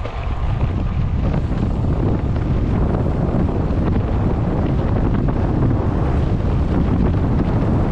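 Wind buffeting the microphone of a moving rider's camera, a steady low rumble that grows a little louder just after the start.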